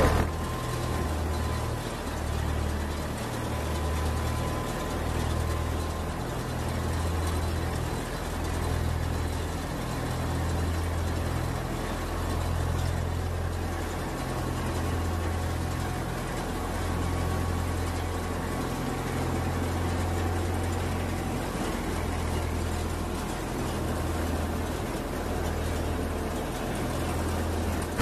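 Wheat threshing machine running: a low, steady mechanical drone that pulses and swells and eases every second or two.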